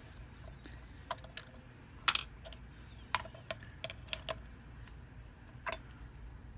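Light, irregular clicks and taps, about a dozen, from small metal parts and tools being handled during a phone repair. The loudest click comes about two seconds in.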